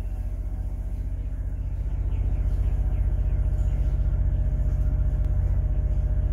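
Marine generator on a Silverton 40 yacht running steadily: a low rumble with an even fast pulse, growing a little louder over the first two seconds.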